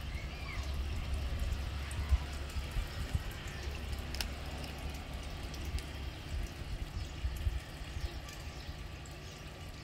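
Faint trickling water over a low, uneven rumble, with a few soft ticks and knocks.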